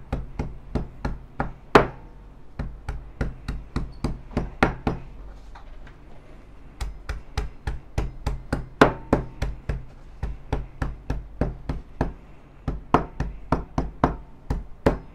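Coriander roots being pounded to release their aroma: a rapid series of sharp knocks, about two to three a second, with a short pause midway.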